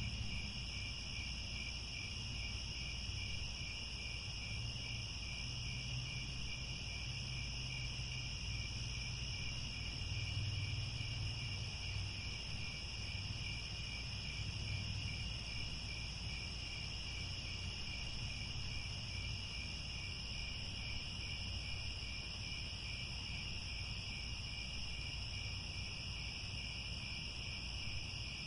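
Crickets chirping in a steady, continuous chorus, with two high trilling pitches layered together over a soft low rumble.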